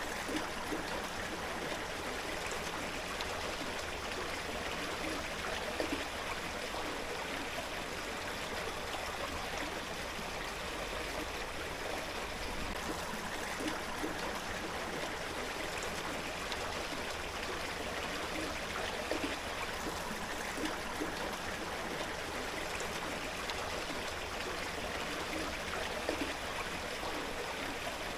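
Steady rushing of river water pouring down a fish ladder, with white water spilling over its steps.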